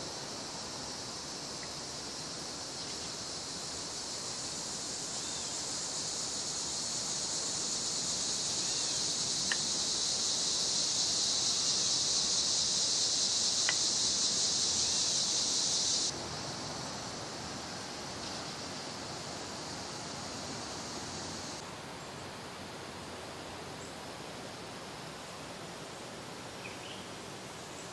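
Insect chorus in the trees, a steady high-pitched drone that swells over the first quarter-minute and drops off suddenly about 16 seconds in, with a fainter layer stopping about 22 seconds in.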